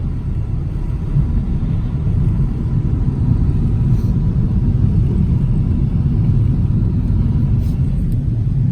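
Steady low road rumble of a car being driven on wet roads in heavy rain, heard from inside the cabin.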